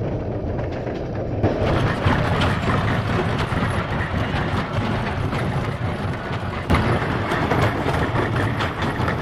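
Horse-drawn rail cart rolling along a narrow-gauge track: a steady rumble and rattle of its wheels on the rails, with a sharp knock a little over halfway through.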